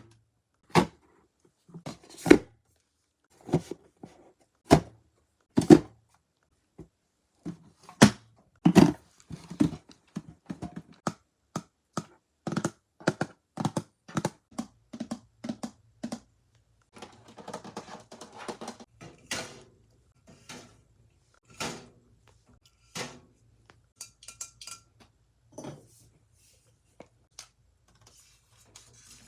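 Irregular thunks, knocks and light clatters of items being handled and set down while a mini fridge is filled, with a busier stretch of rattling and rustling in the middle.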